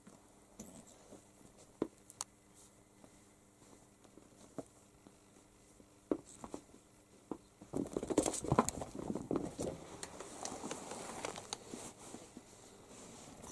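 A cat and a kitten play-fighting: scattered soft taps and scuffs of paws and claws, then from about eight seconds in a few seconds of denser scrabbling and rustling.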